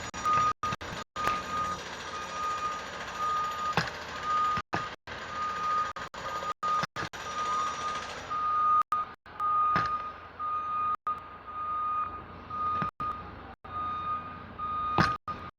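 Vehicle reversing alarm beeping steadily at one pitch, over a background hum of urban noise. A few sharp clicks are heard, and the sound cuts out briefly several times.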